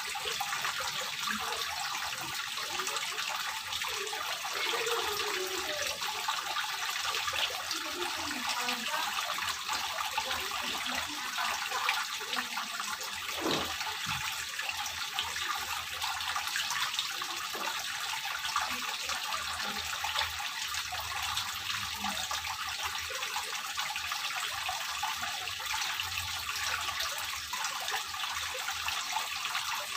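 Water from a stone water-wall fountain, running down its face and spilling in small streams into the pond below, making a steady, even splashing and trickling.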